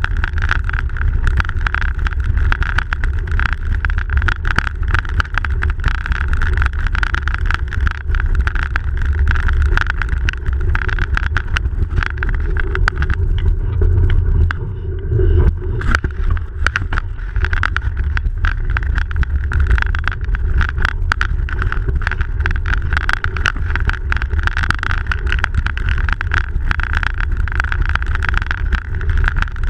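Bicycle being ridden over packed snow, picked up by a camera mounted on the bike: a steady rumble of tyres on snow with constant small rattles and clicks from the bike and mount, easing briefly about halfway through.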